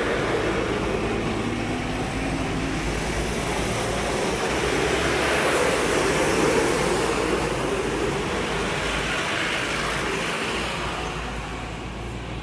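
Darjeeling Himalayan Railway narrow-gauge toy train running: a steady mechanical noise that grows loudest around the middle and eases off near the end.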